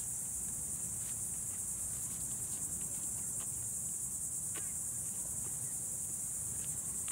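Steady, high-pitched insect chorus with a fast, even pulse, with a few faint clicks over it.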